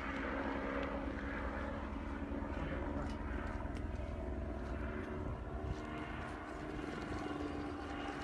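Aircraft engine droning steadily, a continuous even hum with no break.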